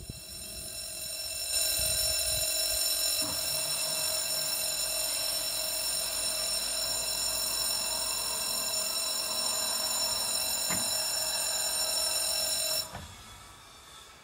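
Electronic level-crossing warning bell at a pedestrian platform crossing, ringing loudly and steadily while the barrier arms lower. It stops abruptly about thirteen seconds in, once the barriers are down.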